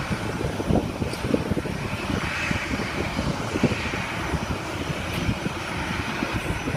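Jet airliner engines running at a distance, a steady rushing noise, under irregular low buffeting of wind on the microphone.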